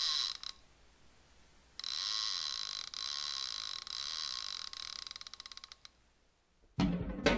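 A high-pitched mechanical whirring that stops briefly, starts again and ends in a run of fast ticks that speed up before cutting out. Music with drums starts near the end.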